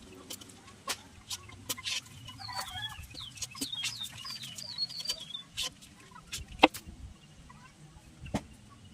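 A chicken clucking a run of short calls in the middle, among scattered sharp clicks and taps. A single louder knock comes about two-thirds of the way through.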